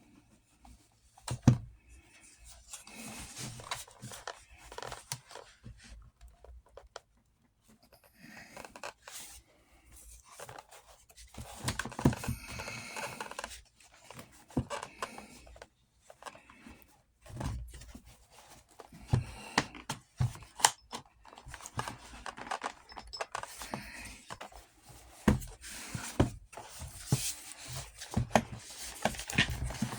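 Handwork on a Western saddle's leather straps and Blevins buckle hardware: irregular scraping and rubbing of leather, with scattered sharp knocks and clicks of metal or tools.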